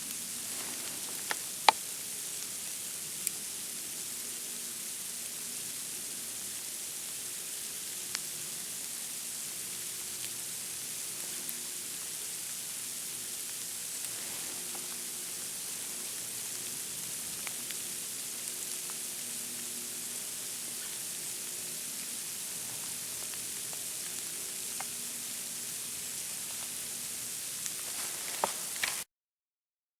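Steady high hiss with a few scattered sharp ticks, the loudest about two seconds in. It cuts off abruptly about a second before the end.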